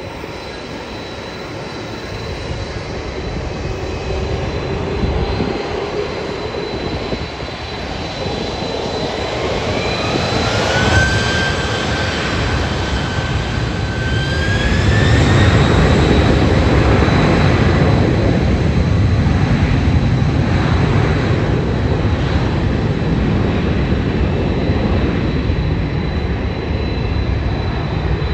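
Wide-body twin-jet cargo plane's engines spooling up for takeoff. A rising whine holds for a few seconds, climbs again, then gives way to a loud steady roar with a deep rumble as takeoff power is set.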